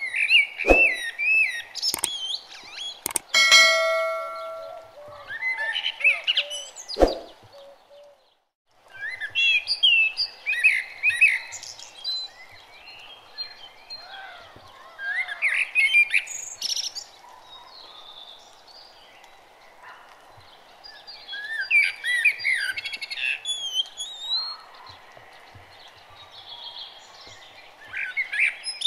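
Birds chirping and singing in short repeated phrases over a steady background hiss. A few sharp clicks and a brief held ringing tone come in the first seven seconds, and the sound cuts out for a moment a little past eight seconds.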